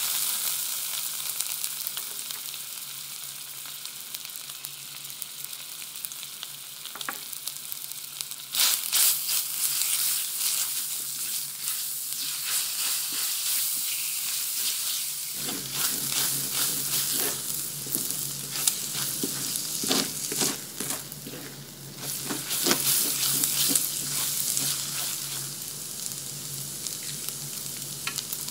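Minced garlic sizzling in hot oil in a stainless steel frying pan, starting suddenly as it goes in. From about nine seconds in, a spatula stirring and breaking it up makes the sizzling louder and uneven.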